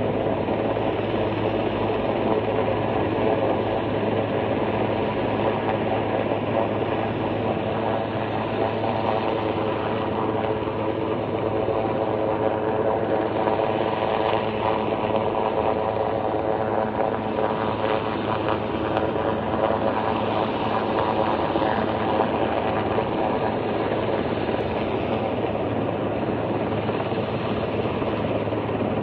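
Helicopter hovering, its rotor and engine giving a steady, unbroken drone.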